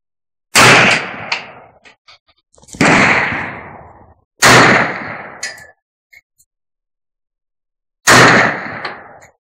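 Four single rifle shots from a semi-automatic 7.62×39 mm I.O. AKM-47 M214, fired slowly one at a time with uneven gaps of about two to four seconds, each shot echoing and dying away over about a second.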